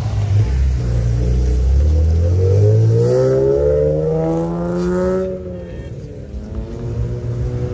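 Nissan 370Z's 3.7-litre V6 accelerating hard away. The engine note rises steadily for about five seconds, then falls away suddenly and the sound fades.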